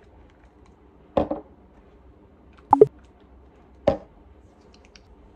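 Plastic pump on a bottle of hair oil being pressed into the palm: three short clicks about a second and a half apart, the middle one a quick double.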